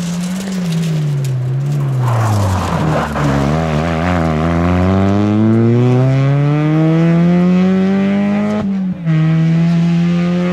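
Rally car engine coming off the throttle, its pitch falling over the first three seconds, then accelerating hard with the pitch climbing steadily for about six seconds. A short break with a drop in pitch near the end, at an upshift, after which the engine holds high revs.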